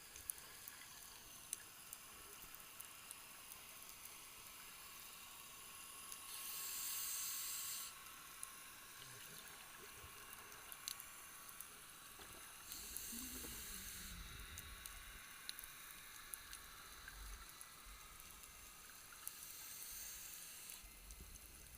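Underwater scuba ambience: a diver's regulator exhaling three bursts of bubbles, each about a second and a half long and roughly six seconds apart, over faint scattered clicks from the reef.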